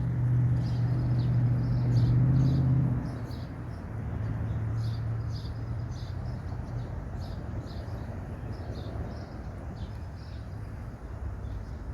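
A distant engine hums low and steady, loudest for the first three seconds and then dropping back, while short high chirps repeat throughout.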